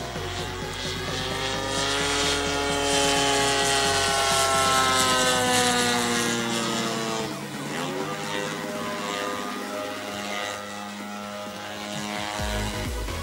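DLE 60cc twin-cylinder two-stroke petrol engine and propeller of an RC Extra 330 aerobatic plane in flight, its note slowly sinking over the first seconds, dipping sharply about halfway through, then climbing again.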